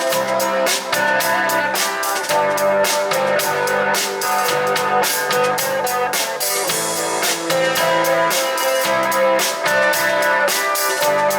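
Live rock band playing an instrumental passage: drum kit keeping a steady beat under guitars and bass, no vocals.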